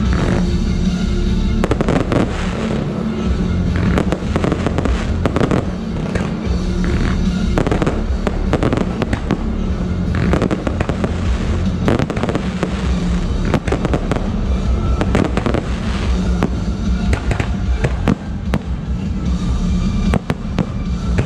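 Fireworks display: many sharp bangs from aerial shells and low mines bursting, coming irregularly and sometimes in quick runs, over loud music.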